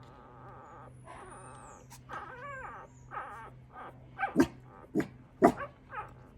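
Four-week-old Coton de Tulear puppy whining and yipping: a wavering whine about two seconds in, then a run of short high yips, three of them sharp and loud in the second half.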